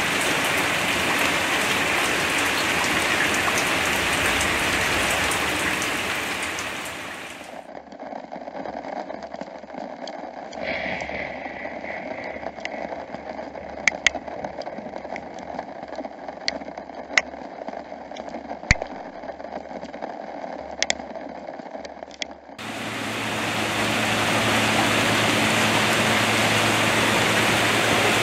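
Heavy rain pouring steadily. About seven seconds in, it cuts abruptly to a quieter patter with sharp, separate drip ticks. About twenty-two seconds in, the heavy downpour returns.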